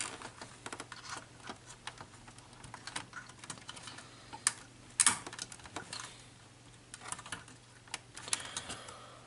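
Scattered light clicks and rattles of cables and connectors being handled while a video adapter is plugged into an Amiga 500, one click louder about five seconds in, over a steady low electrical hum.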